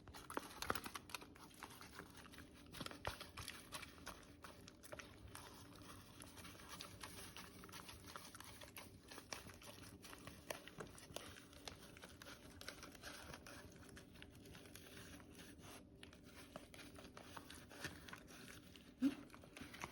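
A small senior dog eating soft food: a quiet run of chewing, mouth clicks and smacks, with soft crinkling of the food pack. A brief low hum near the end is the loudest moment.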